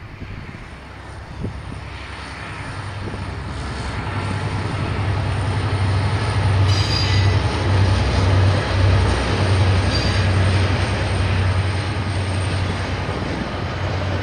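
KiwiRail diesel train passing: a low engine drone and the rumble of wheels on rail build up, peak about halfway through and ease a little. Two brief high-pitched wheel squeals come about halfway through and about two-thirds of the way through.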